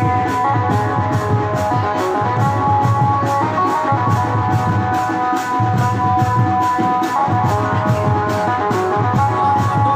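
Casio baja music: an electronic keyboard playing a melody in long held tones over a quick, steady drum beat.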